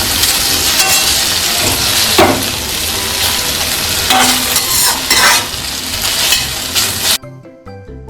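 Food sizzling in a hot kadhai while a spoon stirs and scrapes against the pan. The sizzling cuts off suddenly about seven seconds in.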